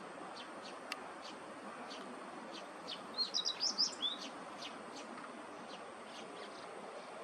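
A small songbird sings a short, quick phrase of high notes about three seconds in. Under it, faint high ticking calls repeat about three times a second.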